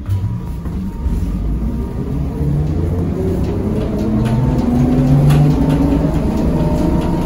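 ZiU-682V trolleybus pulling away, heard from inside: the electric traction motor's whine climbs in pitch and grows louder over rumbling road noise, with a few faint clicks near the end.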